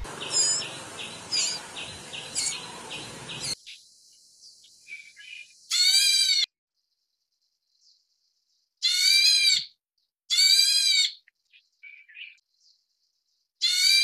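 A quick series of high bird chirps, cut off after about three and a half seconds. Then four loud, clear calls from a black bulbul and its begging fledglings, each under a second long and a few seconds apart, with soft faint notes between them.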